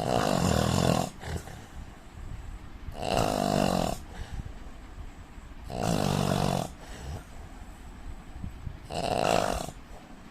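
A man snoring in a steady rhythm: four loud, rasping snores of about a second each, roughly three seconds apart, with quiet breathing between them.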